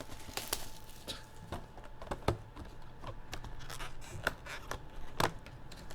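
Handling of a trading-card box and its packs: scattered light taps, clicks and scrapes of cardboard and card stock, with a sharper click about two seconds in and another near the end.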